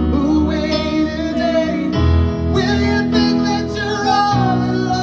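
Live ballad performance: a man singing over acoustic guitar and keyboard chords, the chords changing about every two seconds.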